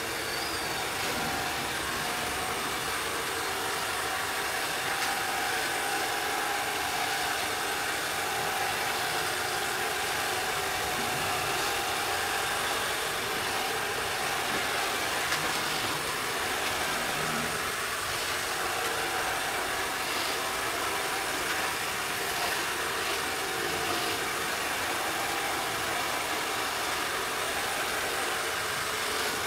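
ILIFE V7S robot vacuum running across a hard floor, its suction motor and brushes making a steady hum with some hiss.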